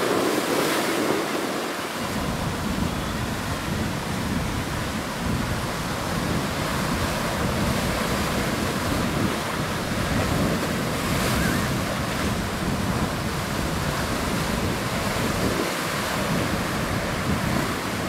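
Rough surf breaking and washing in over rocks and sand in a continuous rush, with wind buffeting the microphone as a low rumble from about two seconds in.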